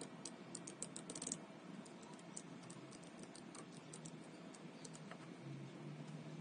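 Keys of an 82-key mechanical keyboard being pressed: a quick flurry of keystrokes about a second in, then slower, scattered single key clicks that stop shortly before the end.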